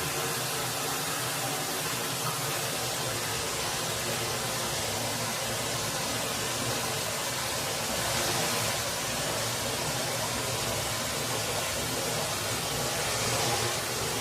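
Steady rushing of a forest stream's flowing water.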